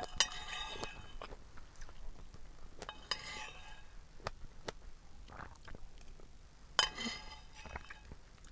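Cutlery clinking against a dish three times, each strike ringing briefly, with small clicks and taps between.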